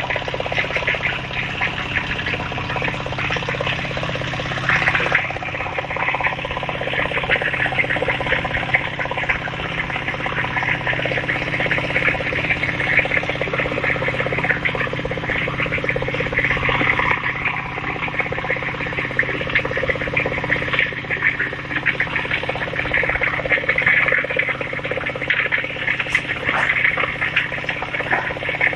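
Dense, continuous chorus of calling frogs and insects, a fast flickering chirr throughout, with a steady low hum underneath.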